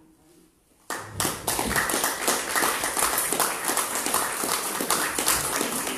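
Audience applauding, starting suddenly about a second in, dense and loud.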